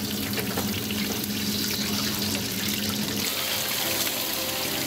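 Soft-shell crab and sweet shrimp deep-frying in a commercial fryer, the hot oil sizzling and crackling steadily.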